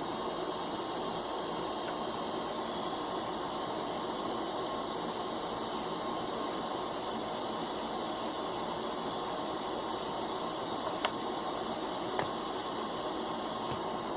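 A steady hiss and hum with a few faint, constant whining tones, like a fan or motor running, with two small clicks near the end.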